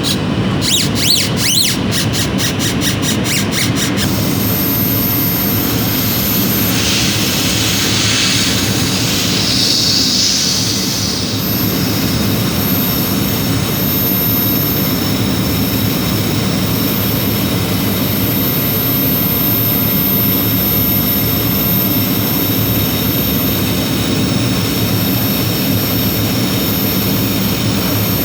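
A machine running with a steady, loud whooshing whir and a low hum. Rapid, evenly spaced ticking runs through the first four seconds, then stops.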